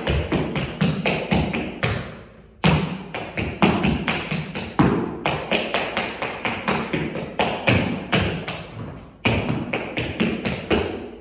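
Tap shoes striking a hard studio floor: a run of quick taps, heel drops and heavier stomps, several per second, in phrases with short breaks about two and a half seconds in and again near nine seconds, each strike ringing briefly in the room.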